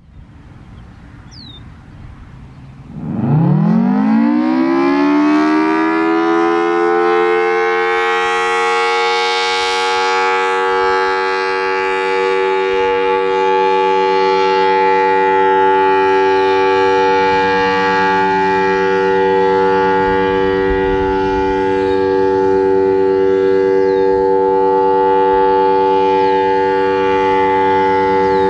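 Federal Signal Thunderbolt 1003A outdoor warning siren, a blower-fed 4/5-port rotor, winding up about three seconds in with a steep rising wail and then holding a steady dual-tone chord: the Alert signal, sounded as a scheduled test.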